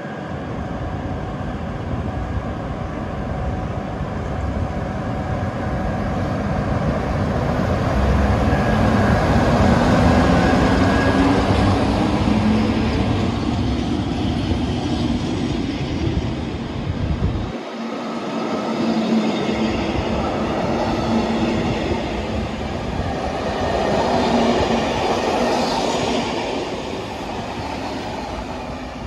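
An InterCity train double-headed by a MÁV class 630 'Gigant' and a class 433 'Szili' electric locomotive, running along the track with a continuous rumble of wheels on rails and shifting electric drive tones. The low rumble briefly drops out a little past halfway through.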